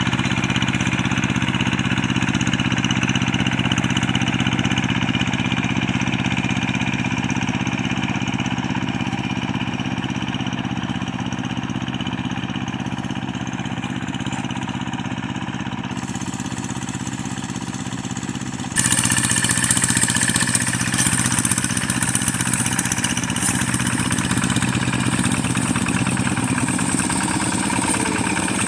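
Rice-paddy hand tractor's engine running steadily at a working pace, a constant low drone. About two-thirds of the way through it abruptly becomes louder and harsher.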